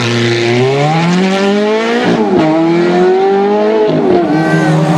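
Ferrari F430's V8 accelerating hard away. The engine pitch climbs, drops at an upshift about two seconds in, climbs again and drops at another shift near the end.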